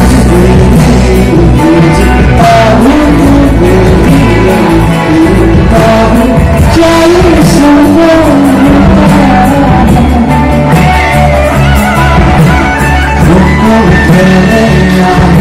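A live band playing loud through a PA: a male lead singer over drums, electric guitars and bass, sounding large and reverberant in a crowded hall.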